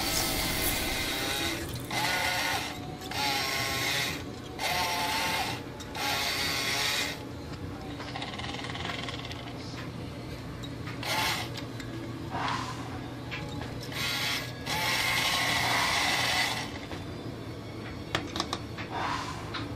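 Electric drive motor and gears of a Radio Shack Zebra Buggy radio-controlled toy car whirring in short bursts, about eight times, as the throttle is blipped on and off. The longest run lasts about two seconds, a little past the middle.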